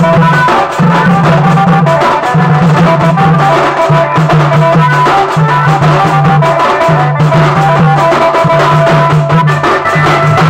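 Loud band-party music: a group of large double-headed barrel drums beaten in a fast, dense rhythm over an amplified melody and a bass line held in long notes that step in pitch.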